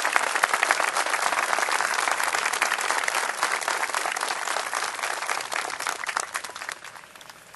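Crowd applauding, the clapping thinning out and dying away near the end.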